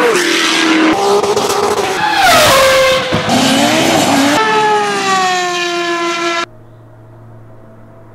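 Several racing and rally car engines revving and passing, spliced together with abrupt cuts every second or two. About six and a half seconds in, this gives way to a faint, steady distant engine drone.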